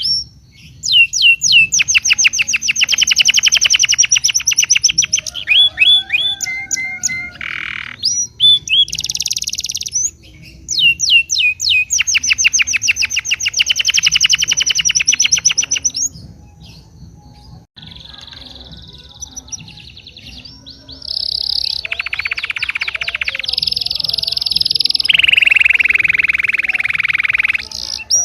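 Songbird masteran recording of a kapas tembak and a canary singing. Long, fast rolling trills of rapidly repeated notes last several seconds each, with short whistled phrases between them, then a quieter pause and, near the end, harsher buzzing trills.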